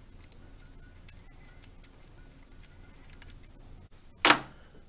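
Light metallic clicks and ticks as a bolt is worked at the mounting ear of a Chevy alternator, with one louder knock about four seconds in.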